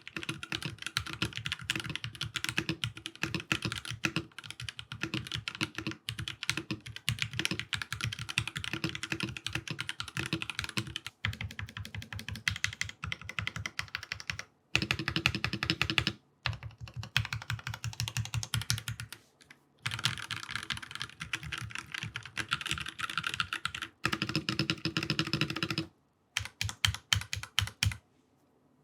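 Typing sound test on a mechanical keyboard fitted with Drop DCX doubleshot ABS keycaps: continuous fast runs of keystrokes, with a few short pauses between bursts and the typing stopping near the end.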